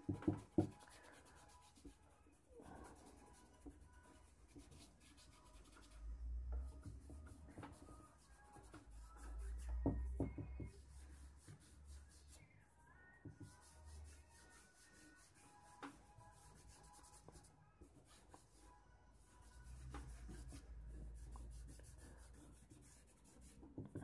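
Faint rubbing of fingers and a charcoal stick on drawing paper, smudging and blending charcoal shading, with a couple of sharper scrapes.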